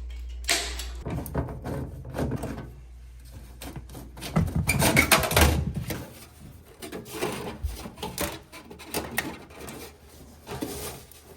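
Irregular knocks, rustles and clatter of things being handled, loudest about four to six seconds in, over a steady low hum that stops about six seconds in.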